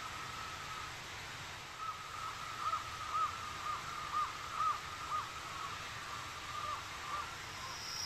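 Tropical forest ambience: a steady hiss, and from about two seconds in a run of short animal calls that each rise and fall, roughly two a second, dying away near the end.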